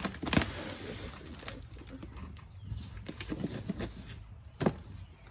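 Packaging being handled while unpacking a boxed comforter set: rustling with a few sharp crackles, the loudest about half a second in and another near the end.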